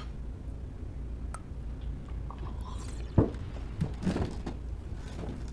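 Soft, scattered dinner-table sounds, a few small knocks and clicks, over a steady low hum.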